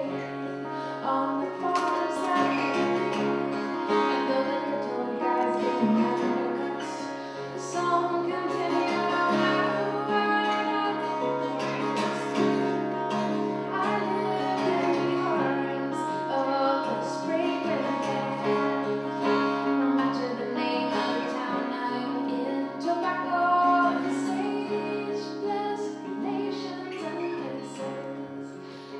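A woman singing over two acoustic guitars played together.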